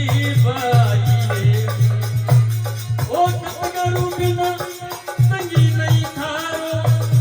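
Instrumental passage of live Marwari devotional folk music: a steady, regular hand-drum beat under sustained melody lines.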